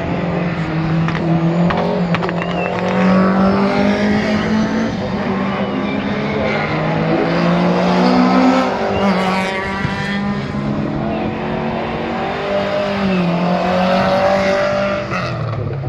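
Rally car engines running and revving at competition pace, with the pitch rising and falling as they accelerate and lift, one steady engine note under other engine notes that glide up and down.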